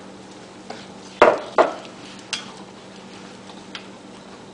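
A few sharp knocks and taps against a saucepan as chickpeas are tipped in from a bowl and stirred into the curry sauce, the two loudest close together about a second in.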